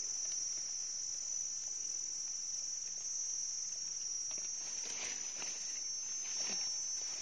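Steady, high-pitched insect chorus of forest crickets or cicadas, with a few faint rustles and knocks in the second half.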